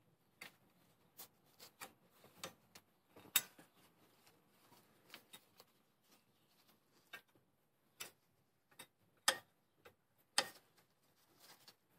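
Sharp, irregular metallic clicks and taps as a pry tool and brake pads are worked into a car's brake caliper: about a dozen clicks, the loudest about three seconds in and two close together near the end.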